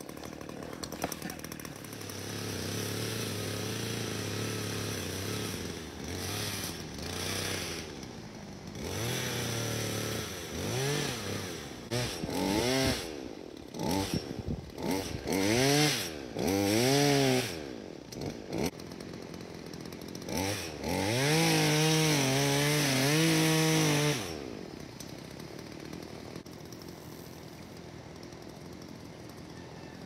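Chainsaw cutting into the base of a sycamore trunk during felling: the engine runs steadily at first, then is revved up and down over and over, then held at high revs for a few seconds before shutting off.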